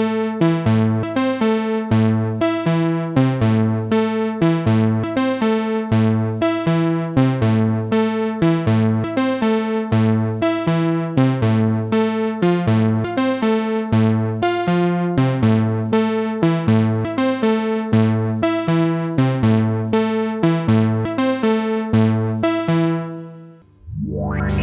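Roland PROMARS software synthesizer preset playing a repeating sequence of short, bright, plucked notes over a bass line. Near the end the pattern stops and a new sustained patch starts with a rising filter sweep.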